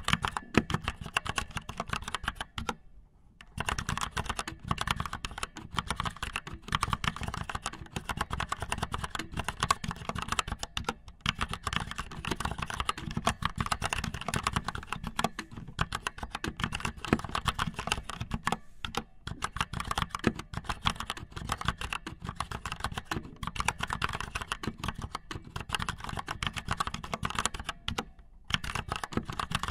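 Dense, rapid, irregular clicking and tapping, much like fast typing, that stops briefly about three seconds in and again near the end.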